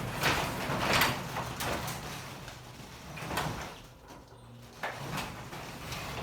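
Sectional garage door rolling along its tracks as it is moved by hand, rollers rumbling in swells. It moves easily, balanced by a newly tensioned torsion spring.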